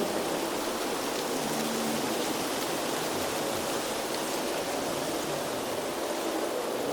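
Steady rushing noise of an outdoor nature ambience recording, even and unbroken.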